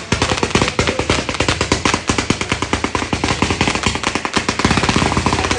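Ground-launched consumer firework firing a rapid stream of small shots: a fast, even rattle of sharp cracks, around ten a second.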